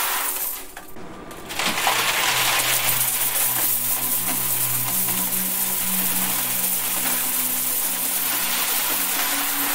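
A continuous stream of mixed coins pouring onto a heap of coins in a metal box, a dense jingling clatter that thins out about half a second in and comes back at full strength by about two seconds in. A low steady hum runs beneath it from about two seconds in.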